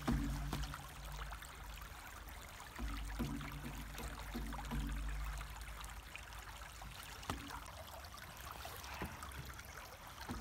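Shallow stream trickling and babbling over stones, with many small splashes and clicks of water. Low steady tones come and go underneath, at the start and again for a couple of seconds around three to five seconds in.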